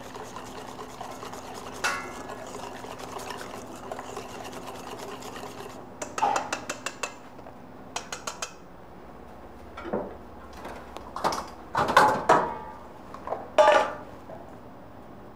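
Metal kitchenware clinking and knocking: pots and utensils handled in bursts, with the loudest clatter near the end, over a steady low hum in the first half.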